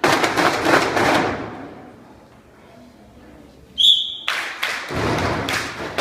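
Percussion on tin cans: a run of quick struck thuds for about a second and a half that dies away, a short whistle blast near four seconds in, then the drumming starts again.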